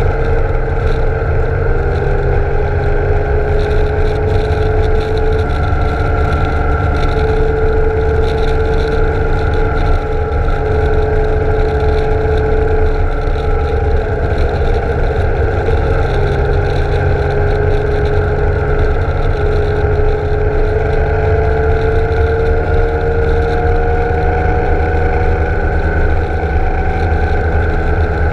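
BMW K1600 GTL's inline-six engine running at a steady cruise, its hum drifting slightly in pitch, over a constant low rumble of wind and road noise.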